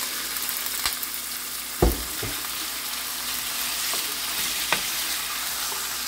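Diced raw chicken breast sizzling steadily in hot vegetable oil in a nonstick pan while it is stirred with a wooden spoon, with a few light clicks of the spoon. A single loud, dull knock about two seconds in.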